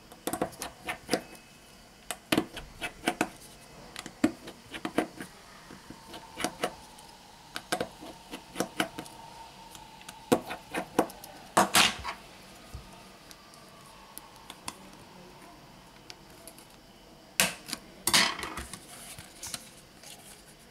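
Scattered small clicks and taps of a smartphone's plastic and metal parts being handled and pressed by hand, with a few louder knocks past the middle and near the end.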